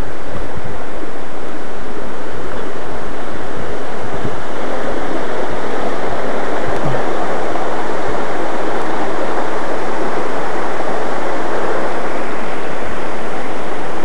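Steady rushing of a waterfall and a stream cascading over rocks, growing fuller about four seconds in.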